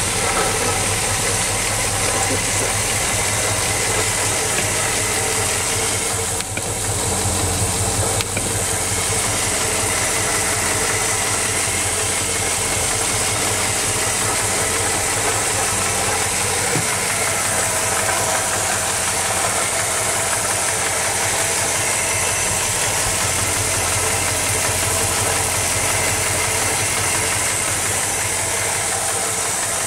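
1964 Studebaker Hawk Gran Turismo's V8 engine idling steadily, heard up close at the open engine bay.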